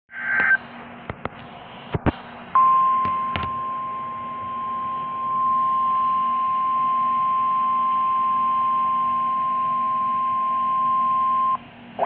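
Midland weather radio sounding the NOAA Weather Radio warning alarm: one steady high beep held for about nine seconds, starting about two and a half seconds in and cutting off just before the end. It is the alert for a severe thunderstorm warning. Before it come a short chirp and a few sharp clicks.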